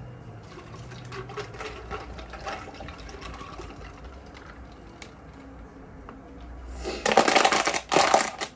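Water poured from a plastic bottle into a stainless steel tumbler of ice, a faint trickling splash over the ice. Near the end come two loud, rough bursts of noise, each under a second long.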